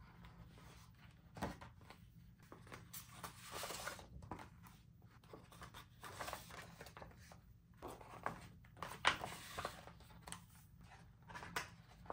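Toy packaging being handled and opened by hand: irregular rustling and crinkling with scattered sharp clicks and light knocks, the sharpest about a second and a half in and near nine seconds.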